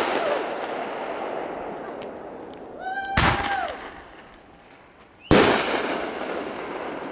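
Aerial firework shells bursting: two loud bangs, about three seconds in and about five seconds in, each trailing off in a long rolling echo, with faint crackles in between.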